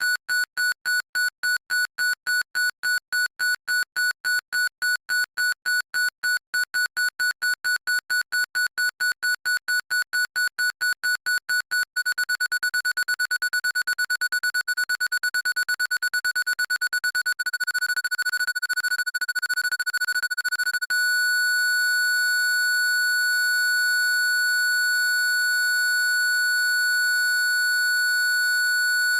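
Parking sensor warning beep: a single high tone beeping about four times a second, speeding up to rapid beeping about twelve seconds in, then merging into one continuous tone for the last eight seconds, the signal that the obstacle is at the nearest distance.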